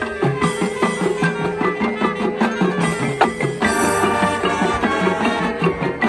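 A marching band playing its field show: a fast passage of short, detached notes over percussion.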